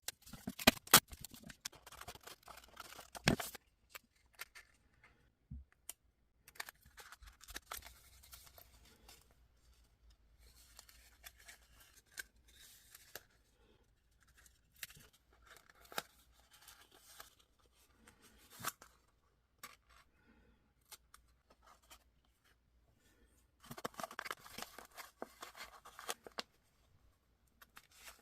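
Scissors cutting craft material in short, scattered snips, with light handling and scraping noises and a few sharp clicks between quiet gaps.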